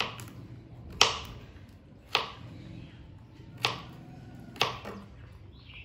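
Kitchen knife chopping carrot on a plastic cutting board: five separate cuts at an uneven pace, about a second apart, each a sharp knock of the blade on the board.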